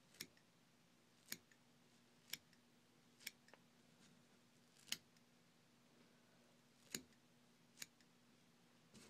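Scissors snipping through spun deer hair, trimming the body of a deer-hair mouse fly to shape: about eight short single snips, irregularly spaced, roughly one a second.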